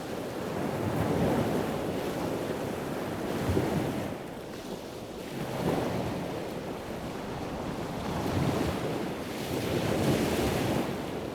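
Rushing noise of surf and wind, swelling and easing every few seconds.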